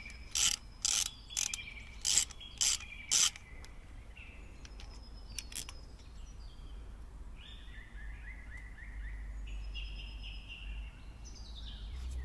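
Ratchet wrench clicking in about seven short bursts, one every half second or so, on its back-swings while a spark plug is unscrewed from a motorcycle cylinder head. Birds chirp faintly in the later part.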